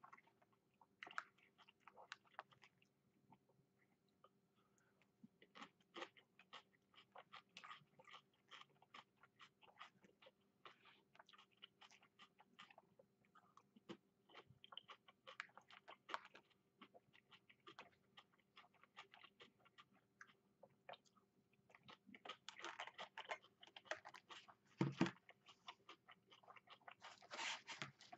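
Faint chewing and crunching of a person eating takeout chicken, beef and fried rice, heard as scattered small clicks that grow busier near the end, with one louder knock about three-quarters of the way through.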